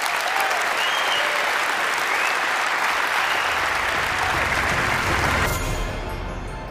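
A large audience applauding loudly and steadily. Low, bass-heavy music comes in under it past the middle, and the applause cuts off suddenly about five and a half seconds in, leaving the music.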